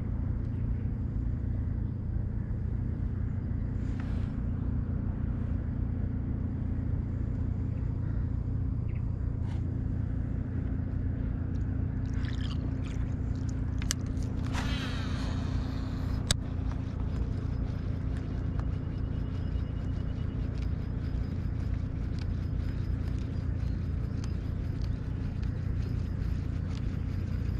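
An engine running steadily, heard as a constant low drone. A brief higher-pitched sound comes about fourteen seconds in, followed by a single sharp click.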